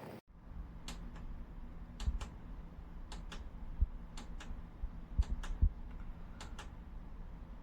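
Light, sharp clicks, mostly in pairs about a second apart, over a low steady hum.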